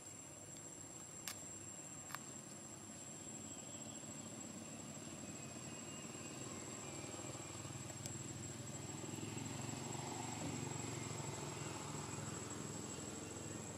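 Outdoor ambience: a steady, thin, high insect drone throughout, with a low rumble that swells about ten seconds in, and two sharp clicks near the start.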